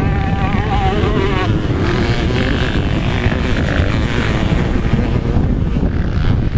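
Motocross dirt-bike engines revving, their pitch wavering for the first second or so before they blur into a rough, steady din, with heavy wind rumble on the microphone.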